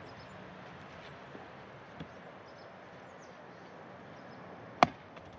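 An axe striking a log being split: a faint knock about two seconds in, then one sharp, loud chop near the end.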